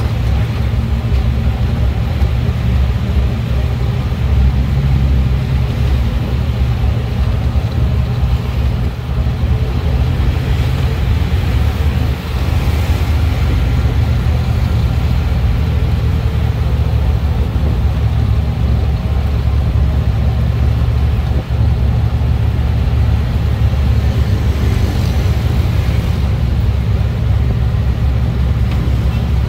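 Steady low engine and road rumble heard from inside a moving vehicle, with brief dips in loudness about twelve seconds in and again about twenty-one seconds in.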